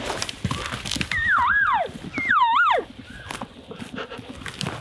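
Two cow-elk mews in quick succession, starting a little after a second in. Each is high and whining, dips, rises again, then slides steeply down.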